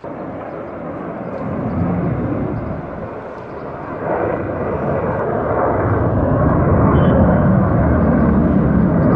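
F-16 fighter jet flying past, its jet engine noise a broad rushing rumble. It starts suddenly, swells over the first two seconds, dips briefly about three seconds in, then grows louder again and holds loud.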